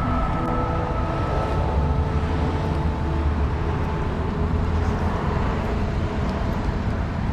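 Steady road traffic on a busy street, cars going by in a continuous deep rumble that swells a couple of times.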